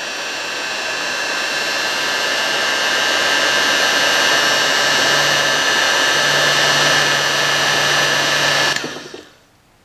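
Weller heat gun blowing hot air: a steady whoosh with a high whine, switched off near the end and dying away over about a second. It is heating a seized band-switch shaft to free it.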